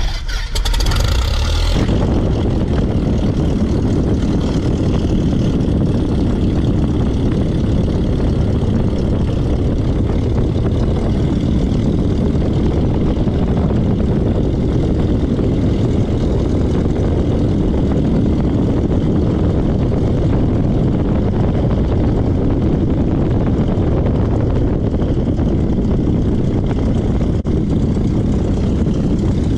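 American Champion Super Decathlon's propeller and 180 hp Lycoming four-cylinder engine running steadily during a ground roll, mixed with wind and tyre rumble on the asphalt. The sound starts abruptly with a brief hiss, then holds loud and even.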